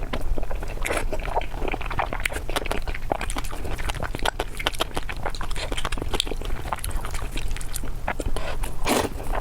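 A person chewing and biting food close to the microphone: a dense, irregular run of wet mouth clicks and smacks over a steady low hum.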